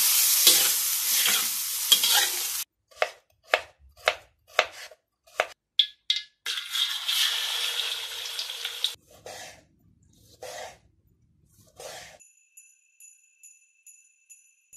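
A spatula stirring and scraping food in a steel wok over high heat, with sizzling oil. There is a run of short stirring strokes about two a second, then a second long sizzle of frying in oil. Near the end a faint repeating jingle-bell tinkle begins.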